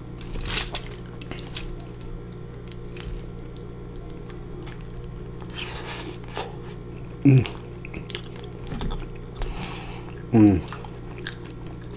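A person eating loaded fries with a metal fork: the fork clinks against the foil tray near the start, then soft chewing with small mouth clicks. Twice, about seven seconds in and again near the end, comes a short falling 'mmm' of enjoyment over a steady low hum.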